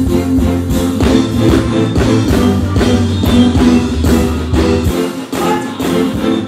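Live band playing an instrumental stretch: electric guitar, bass guitar and drum kit on a steady beat. The bass drops out for a moment about five seconds in.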